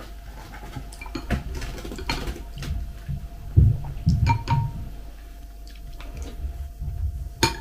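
Metal spoon clicking and scraping against a glass bowl as kefir with flakes is stirred and scooped, in a few separate light clicks, with some low soft thumps around the middle. A faint steady hum runs underneath.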